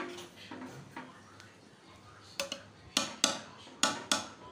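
A spoon scraping and knocking against a metal cooking pot as the cooked rice is dished out, with several sharp clinks in the second half.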